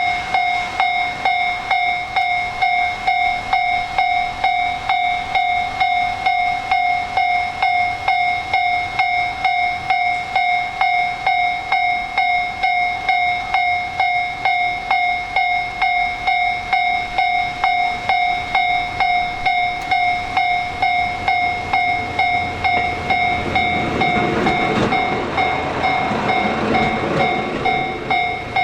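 Japanese railroad-crossing warning bell ringing its steady "kan-kan", about two and a half strikes a second. A diesel train on the Soya Main Line passes near the end, its running noise swelling up under the bell from about 24 seconds in.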